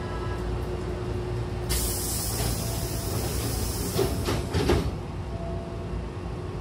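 Pneumatic sliding doors of a Hankyu 6000-series train closing: a sudden loud blast of air hiss about two seconds in, then the door leaves knock shut twice, at about four and nearly five seconds, and the hiss cuts off. A steady low rumble of the stationary train runs underneath.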